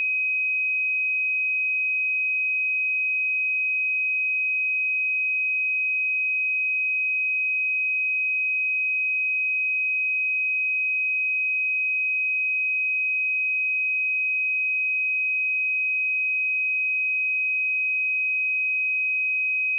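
A pure 2525 Hz sine-wave test tone, held steady at one pitch and level.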